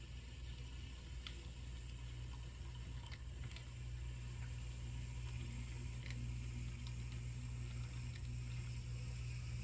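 HO scale Proto 2000 EMD SD7 model diesel locomotive running on track with coal cars: a steady low whir of the motor and gearing with scattered small clicks of wheels on the rails.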